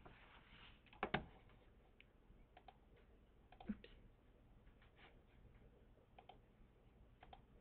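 Near silence with scattered faint clicks of a computer mouse; the sharpest come about a second in and just before four seconds in.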